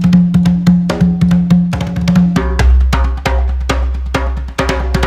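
A set of congas played with bare hands in a fast, even stream of strokes, a rhythm meant to evoke a steam train. About halfway through, a deeper low sound comes in under the strokes.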